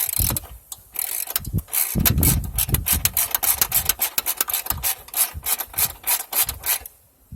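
Socket ratchet wrench clicking rapidly and steadily as a loosened 12 mm bolt is backed out, stopping shortly before the end.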